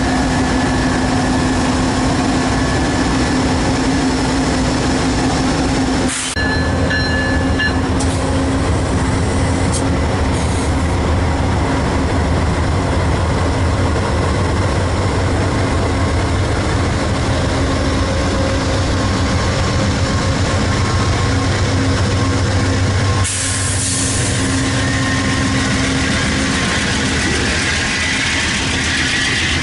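Amtrak passenger train led by two GE P42DC diesel locomotives rolling past: the locomotives' diesel engines running steadily with the rumble of the cars' wheels on the rails. A few brief high tones sound about six seconds in.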